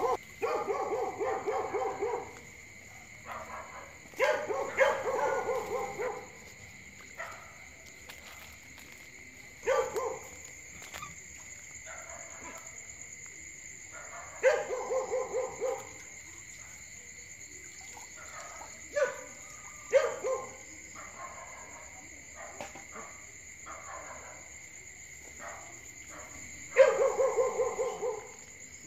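A dog barking in repeated bouts of several quick barks, with pauses of a few seconds between bouts, over a steady high chorus of night insects.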